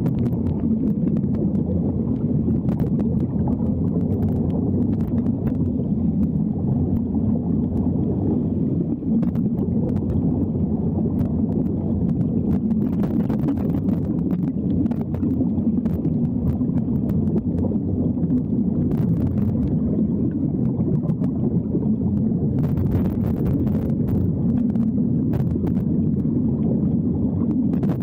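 Steady low underwater rumble of air bubbles and water movement, with scattered faint clicks, from the air streaming out of Sea Trek diving helmets.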